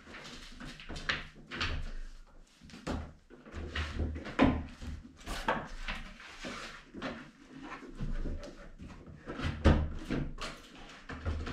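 Wooden dining table creaking and knocking under a climber's weight as he moves hand over hand and swings his feet around its rim. The knocks and low thumps come irregularly, and the loudest fall about four and a half seconds in and near the end.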